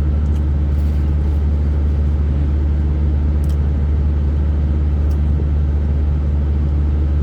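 Steady low drone of a truck's engine heard inside the cab, with a couple of faint short clicks.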